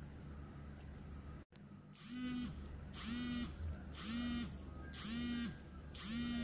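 An alarm starts about two seconds in, sounding a pitched half-second tone about once a second, five times in a row: the alarm calling time on the fishing session. Before it there is only a faint steady low hum.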